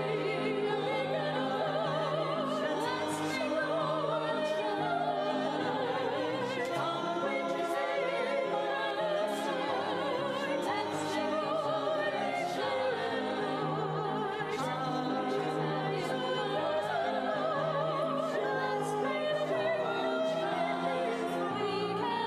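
Church music: singing with heavy vibrato over sustained accompaniment chords, a sacred song or anthem performed during a worship service.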